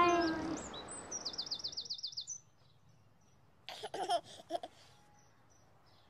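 A children's song ends on a held note and fades. Then birdsong follows: a quick trill of repeated high sweeps, and a short burst of chirps about four seconds in.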